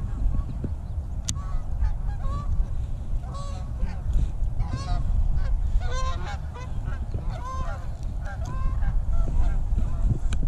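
A flock of geese flying over, honking over and over in short overlapping calls that start about a second in, are thickest in the middle and thin out near the end.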